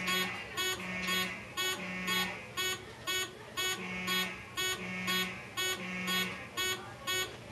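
Fire alarm horns sounding during a fire drill: a sharp, high pulsing horn at about two blasts a second, overlaid by a lower horn sounding in groups of three blasts with a pause between groups, the temporal-three evacuation pattern.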